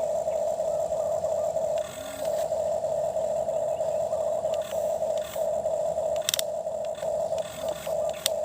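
Small electric motor of a toy excavator whining steadily at one pitch, dropping out briefly a few times, with short scraping and clicking as the bucket digs in soil.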